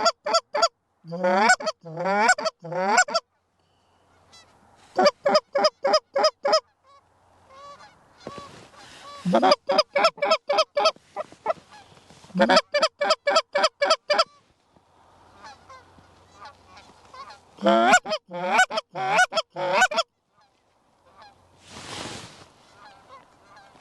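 Canada goose calling: quick runs of short honks and clucks, five to eight notes at a time with pauses between. A brief rush of noise comes near the end.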